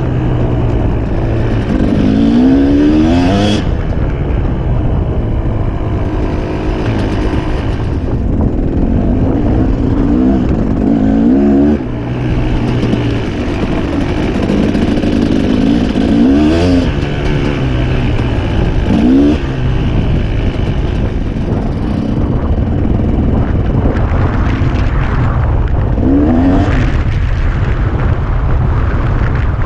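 KTM 250 EXC two-stroke dirt bike engine being ridden at low speed, revving up through the gears about five times, with steady running between revs. The engine runs cleanly.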